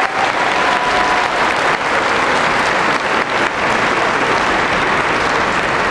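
Audience applauding steadily, a dense wash of many hands clapping at once.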